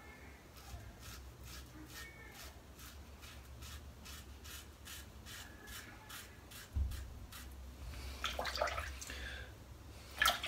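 Gem Micromatic single-edge safety razor scraping through lather and a day's stubble on the scalp, against the grain, in short quick strokes about two or three a second. Louder scratchy strokes come near the end.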